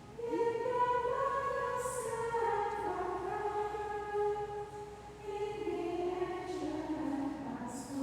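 A choir singing a slow melody, with long held notes that step up and down.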